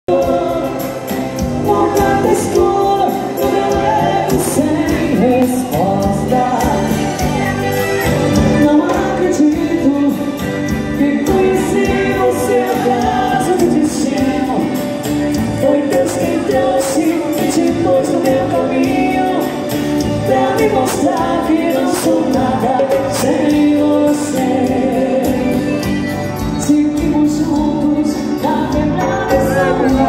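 Live dance band playing a song, with a woman singing lead over electric guitar, keyboard and a drum kit keeping a steady beat.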